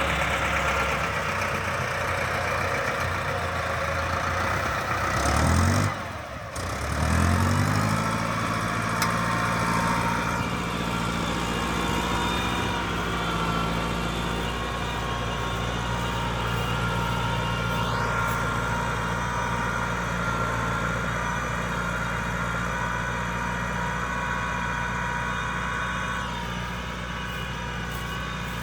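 YTO 1024 tractor's diesel engine running steadily; about six seconds in its note drops sharply and then climbs back up, after which it runs steady again.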